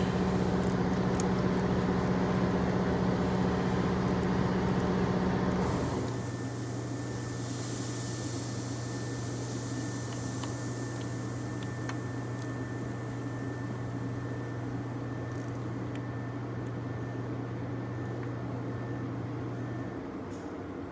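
Steady machine hum. About six seconds in it drops in pitch and level, then runs on evenly until it fades near the end.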